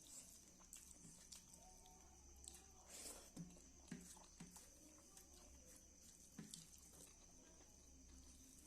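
Faint chewing and mouth sounds of a person eating, with scattered soft clicks and smacks, a few louder ones about three to four seconds in.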